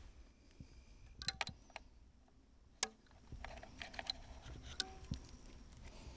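A few faint, sharp clicks and ticks as a compound bow is handled and an arrow nocked, the sharpest about halfway through.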